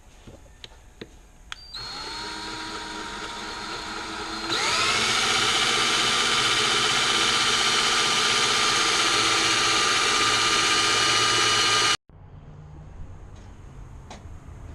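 Electric power drill spinning up about two seconds in, its whine rising and settling, then speeding up and getting louder a couple of seconds later. It runs at a steady whine until it cuts off abruptly near the end. A few light clicks come before it starts.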